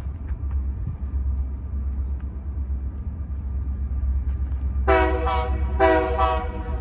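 Diesel locomotive air horn sounding two short blasts about a second apart, near the end, over a low steady rumble as the train approaches the crossing.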